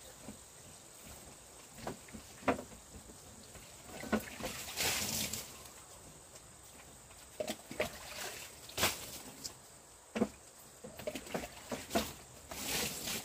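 A person peeling and eating melon at a plastic table: scattered small clicks and knocks, with a short crisp scraping crunch about five seconds in and another near the end.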